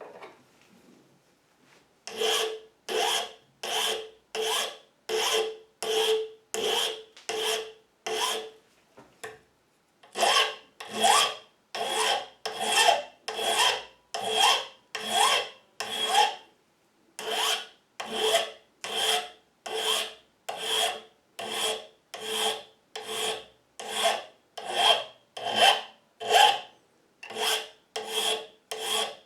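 Hand file rasping on a metal key blank in even back-and-forth strokes, about one and a half a second, starting about two seconds in with two brief pauses along the way. The blank is being filed down to fit the lock's keyway.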